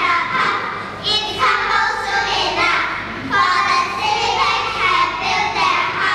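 A group of young children singing together in chorus, in short phrases.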